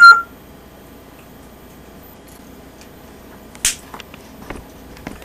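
A small metal bell toy on a chain, struck by an African grey parrot's beak: one short bright ding right at the start. A sharp click about three and a half seconds in and a few faint taps follow.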